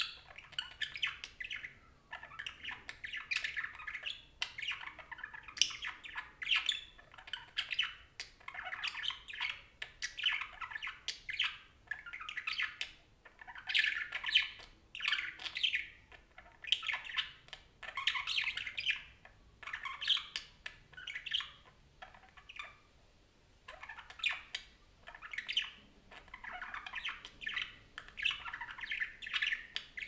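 Parakeet chattering: a steady run of warbling chirps and squawks in short bursts of about a second each, with a pause of about two seconds past the middle.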